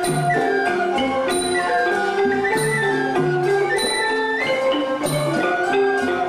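Traditional Khmer folk dance music with a xylophone-like melody moving in short stepped notes, the phrase repeating about every second and a half over a low repeating note.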